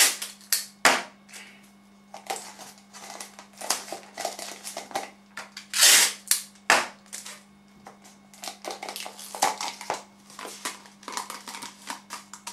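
Sticky tape being pulled, torn and pressed onto the end of a cardboard tube to seal it: irregular sharp crackles and clicks, with a longer rip about six seconds in. A steady low hum sits underneath.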